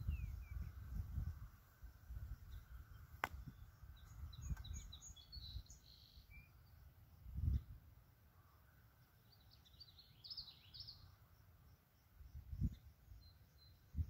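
Wind gusting against the microphone as low rumbling buffets, strongest near the start and again briefly about halfway and near the end. Small birds chirp in short quick clusters about four seconds in and again around ten seconds.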